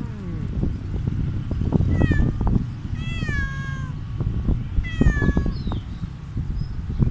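A stray cat meowing three times, the middle meow the longest, the later two falling in pitch, over low bumps and rumble.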